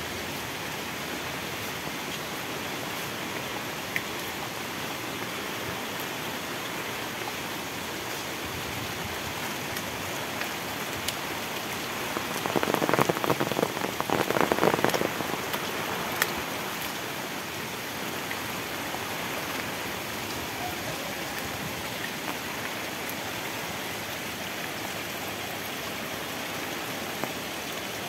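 Heavy tropical rain falling steadily. About halfway through, a louder stretch of dense, close hits lasts around three seconds.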